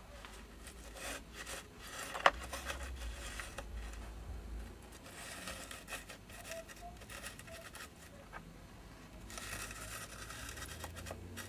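Flocked miniature-figure bases being turned round and shuffled on a board by hand: light rubbing and scraping, with one sharp click a little over two seconds in.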